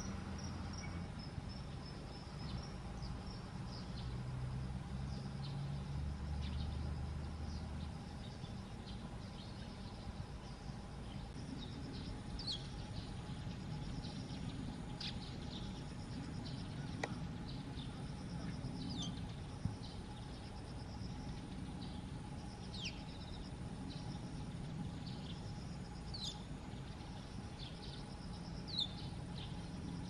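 Bull-headed shrike giving short, sharp, high calls that slide down in pitch, one every few seconds. Behind them is a steady background hum of insects.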